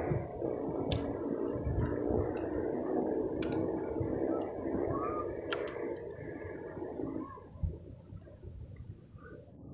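Sea water lapping and sloshing against the hull of a small outrigger canoe, with a few sharp clicks; it quiets down near the end.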